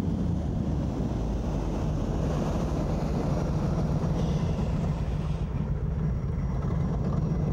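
Airboat running at speed: the steady drone of its engine and caged air propeller, with water rushing under the hull.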